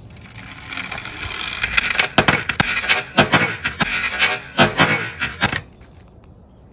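Toy police car's small wheels rolling and scraping along wooden boards, building up over the first couple of seconds, then a dense run of sharp clicks and knocks as it clatters along. It stops about five and a half seconds in.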